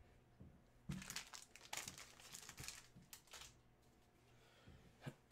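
Faint crinkling and rustling of something being handled, in a cluster of short strokes over about two and a half seconds, then a light click near the end.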